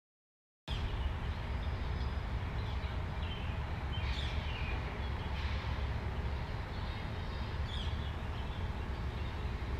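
After a moment of silence, outdoor ambience cuts in: a steady low rumble with a few faint bird chirps, about four and eight seconds in.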